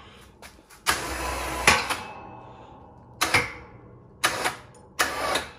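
Electric ATV winch on a snowplow mount, its motor run in four short bursts to work the plow blade. The first burst, about a second in, lasts about a second; three shorter ones follow near the end.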